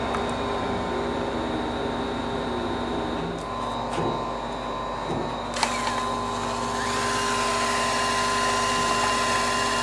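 Electric drill running steadily, turning a spiral mixing paddle that stirs epoxy resin and hardener in a plastic bowl. Its pitch rises a little about seven seconds in.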